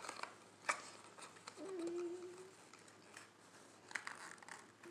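Handling of a small cardboard toy box: a few soft clicks and scrapes of card as the box is opened and a miniature carton is slid out, with a short hum about two seconds in.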